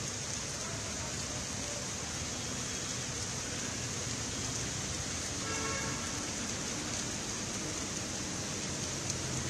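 Heavy rain falling steadily as a constant hiss, mixed with traffic driving on the wet road. A brief pitched tone sounds about halfway through.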